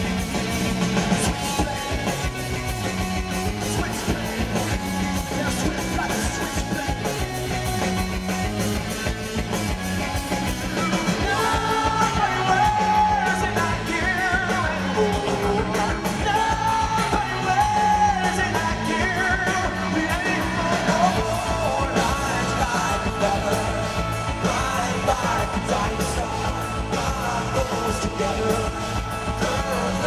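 Rock band playing live, drums, bass and guitar in a dense, steady mix. A male lead voice sings over it from about eleven seconds in.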